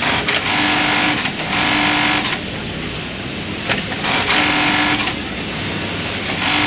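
Industrial bartack sewing machine running short stitching cycles, each a bit under a second, twice in quick succession, again about four seconds in and once more near the end, with clicks between cycles.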